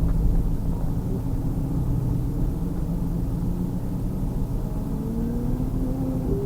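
2000 Pontiac Trans Am Firehawk's 5.7-litre LS1 V8 running at low speed, its pitch rising gently in the last second or so as it picks up a little speed.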